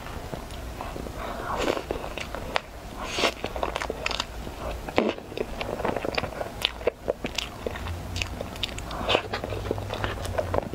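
Close-up eating of a cream-frosted sponge layer cake: a spoon scooping through the cake and cream, with wet chewing and mouth sounds in many short sticky clicks and smacks.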